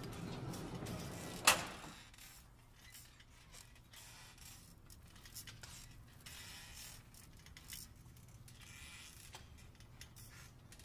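Elevator doors sliding open with a rumble that ends in one sharp bang as they reach their stop, about a second and a half in. After that, only faint room tone with a few scattered ticks.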